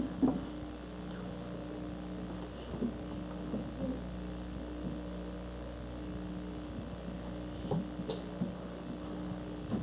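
Steady electrical mains hum on an old videotape soundtrack, with light knocks and bumps here and there. The sharpest knock comes just after the start.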